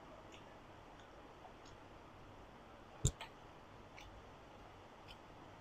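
Quiet mouth sounds of someone chewing a fresh spring roll: faint soft clicks every so often, and one sharper click about three seconds in, followed at once by a smaller one.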